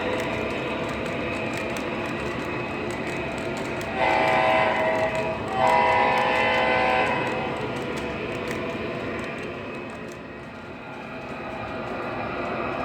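Sound system of an MTH DCS-controlled model diesel locomotive: a steady running rumble, with two air-horn blasts, the first about four seconds in and the second just before six seconds, each a little over a second long.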